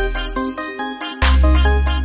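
Background electronic music with a steady beat and synth notes; the deep bass drops out for under a second and comes back about a second in.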